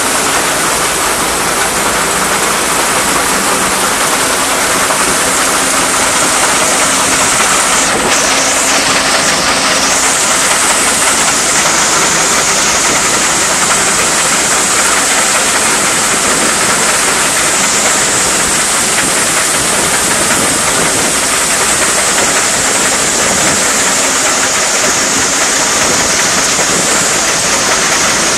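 1939 Case threshing machine running at work, belt-driven by a 1952 Case LA tractor: a loud, steady mechanical clatter and rushing hiss with a faint steady hum underneath. The hiss grows brighter about ten seconds in.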